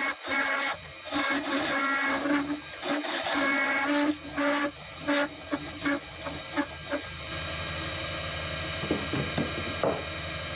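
Record Power DML320 wood lathe running while a turning tool cuts a small spinning wooden blank in short passes, giving a pitched hum that comes and goes with each cut. About seven seconds in the cutting stops and only the steadier, lower hum of the running lathe remains.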